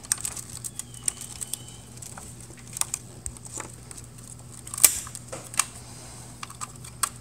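Irregular light clicks and ticks of plastic wire connectors and cables being handled against a printer's sheet-metal frame, with one sharper click about five seconds in, over a faint steady low hum.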